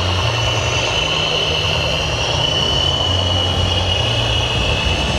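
Radio-controlled model trucks running: a steady high-pitched whine over a low engine-like drone that shifts in pitch now and then.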